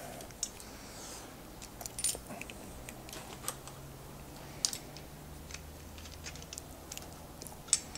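Small steel parts clinking as a washer and nut are handled and fitted onto a bolt on a steel bracket: scattered light metallic clicks, a second or so apart, over a faint low hum.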